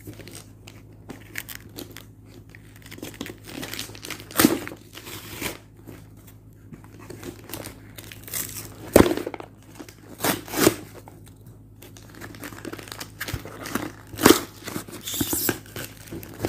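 Tablet packaging being handled and unwrapped: irregular crinkling and rustling with scattered sharp clicks and knocks.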